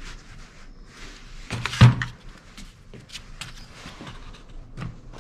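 Hard knocks and clicks of a Homelite Super 2 chainsaw's engine being handled in its plastic housing, with one louder clunk a little under two seconds in.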